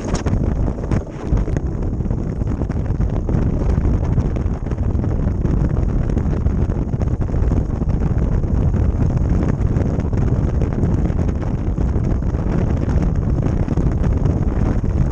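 Steady wind noise on the microphone of an ice boat sailing at speed, mixed with the rush of its steel runners on the ice. A few light clicks come in the first second or so.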